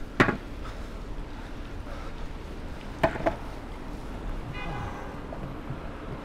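A longboard clacks down onto stone paving slabs, then two more knocks come from the board about three seconds in as the rider steps on and pushes off. Low, steady city traffic noise sits underneath.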